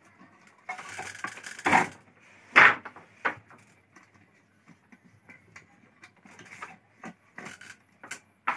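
Handloom being worked by hand: a rasping slide about a second in, then a few sharp wooden knocks as the beater is pulled against the cloth. Lighter clicks and taps follow, and two more loud knocks come near the end.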